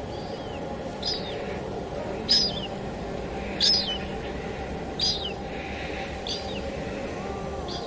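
A songbird repeating a short, high call six times, about one every second and a quarter, each call dropping in pitch at its end, over the steady hiss of falling rain.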